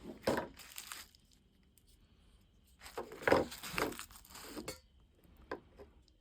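Crinkling, tearing handling noise in two bursts of about a second each, followed near the end by a few light clicks.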